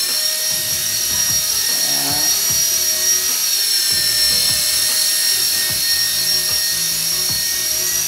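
Small 4-channel remote-control toy helicopter in flight, its electric motor and rotor giving a steady high-pitched whine that wavers slightly in pitch.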